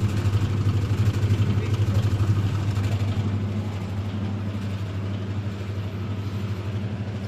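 Whirlpool top-load washing machine running, its motor giving a steady low hum that eases slightly after about three seconds. The motor runs freely without the abnormal noise, because the control board (PCB) fault that made it react badly has been repaired.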